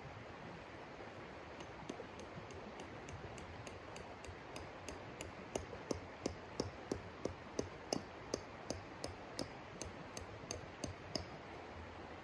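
A tent stake being tapped into the ground with steady, sharp strikes, about three a second, getting louder about halfway through and stopping shortly before the end, over the steady rush of a river.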